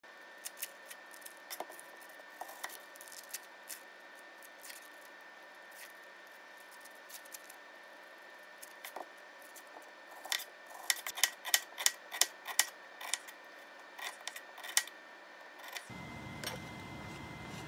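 Kitchen knife work on an onion over a plastic cutting board: a few scattered clicks and handling noises, then a quick run of sharp knife taps against the board, about two to three a second, for several seconds. Near the end a steady low rushing noise comes in as the scene turns to a saucepan on the stove.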